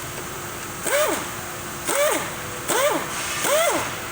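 Small cordless power tool's motor running in four short bursts, each a whine that rises then falls in pitch as the trigger is squeezed and let go, running out the transmission valve body bolts.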